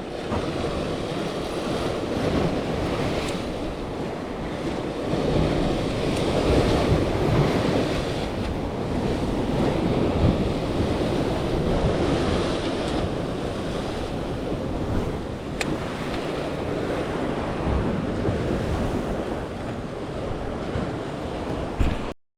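Adriatic sea waves washing in, with wind buffeting the microphone; the noise swells and eases without a steady rhythm and cuts off suddenly near the end.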